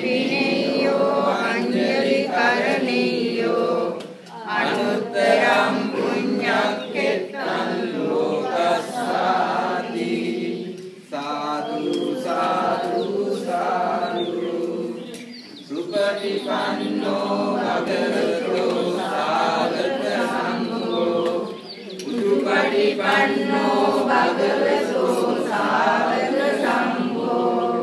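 A group of voices chanting Pali verses together in a steady, sing-song recitation. There are brief pauses between lines about 4, 11, 15 and 22 seconds in.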